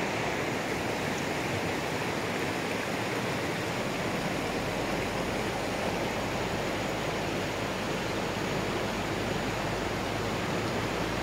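Shallow river water flowing and rippling over and between rocks, a steady rushing.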